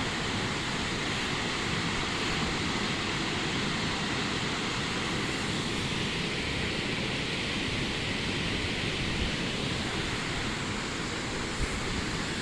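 Steady rushing of falling water from Tumalo Falls, an even, unbroken hiss of water.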